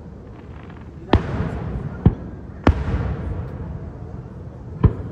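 Aerial firework shells bursting: four sharp booms, at about one second, two seconds, just under three seconds and near the end, each trailing off in a low rumble.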